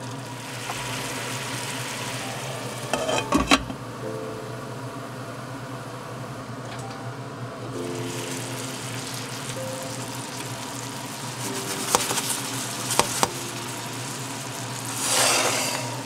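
Meat-stuffed fried tofu pouches sizzling in oil in a cast-iron skillet. A few sharp knocks come about three seconds in and again around twelve and thirteen seconds, and a louder hiss swells near the end.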